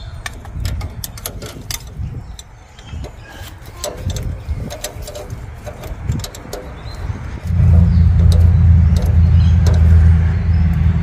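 Small metallic clicks and knocks of hands and tools on the engine's fittings, then about seven and a half seconds in the Massey Ferguson tractor's diesel engine is cranked over by its starter motor, a loud, steady low drone, without starting.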